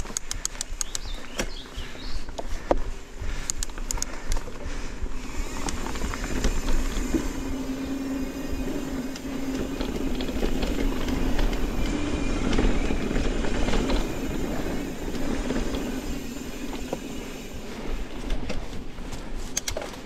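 Mountain bike ridden along dirt singletrack: a continuous rumble of tyres on the trail, with rattling and clicking of the bike over rough ground near the start and again near the end, and low wind rumble on the microphone.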